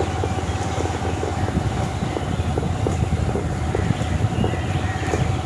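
Motorcycle engine running steadily at low riding speed, heard from the rider's seat as a continuous low hum.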